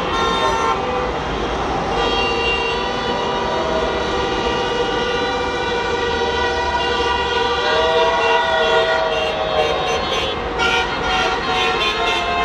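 Many car horns honking at once in long, overlapping blasts over traffic rumble: celebratory honking after a victory.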